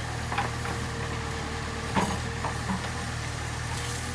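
Engine idling steadily with a low, even hum, with a few faint knocks, the clearest about two seconds in.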